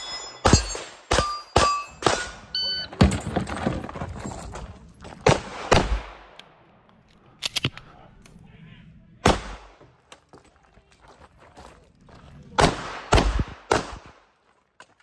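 Compact handgun fired in quick pairs and short strings, about fifteen shots with pauses between groups. A few of the early shots are followed by the short ring of a hit steel plate.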